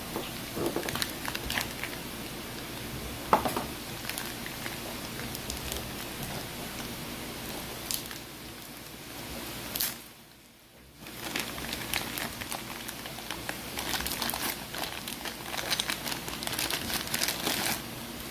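Clear plastic bag crinkling and crackling as hands squeeze it and tear it open to unwrap a set of clutch shoes. There is a brief quiet gap about ten seconds in, then denser crinkling.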